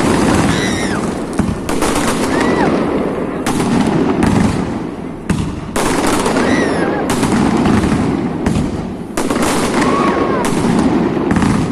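Fireworks display: aerial shells bursting in rapid, irregular bangs and crackle, with a few short whistling tones among them.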